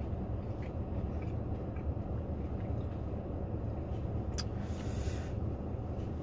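Steady low rumble of a car idling, heard inside its closed cabin. A few faint clicks sit on top of it, and about four seconds in comes a sharper click followed by a brief hiss.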